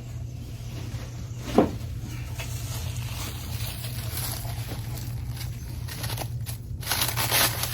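Packing material rustling and crinkling as a motorcycle cylinder head is unwrapped by hand, with one sharp knock about a second and a half in and louder rustling near the end. A steady low hum runs underneath.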